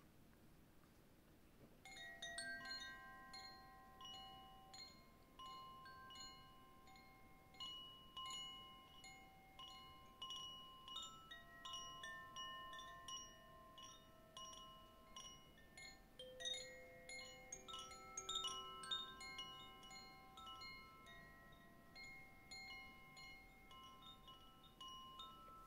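Wind chimes tinkling softly, struck at random so that many clear ringing tones of different pitches overlap and die away; the chiming begins about two seconds in.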